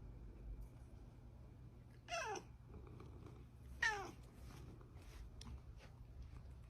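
A domestic cat meowing twice, about two seconds apart, each meow short and falling in pitch.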